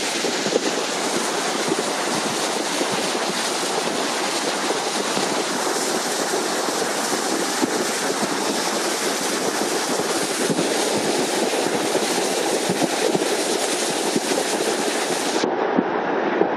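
Muddy flash-flood water rushing high through a desert wash: a loud, steady churning rush with no letup.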